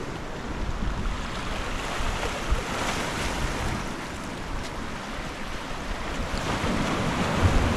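Sea waves washing in steadily, with wind buffeting the microphone.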